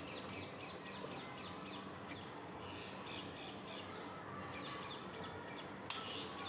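Birds chirping and calling over a steady outdoor background hum, with one sharp click about six seconds in.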